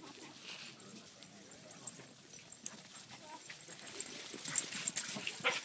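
Corgis at play with a short dog yip near the end, among scattered sharp rustling knocks that grow louder over the last second or so, from a jacket brushing close to the microphone.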